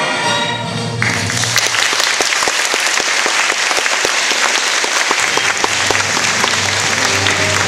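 Music stops about a second in and an audience breaks into loud, dense applause. Low music comes back in beneath the clapping in the last couple of seconds.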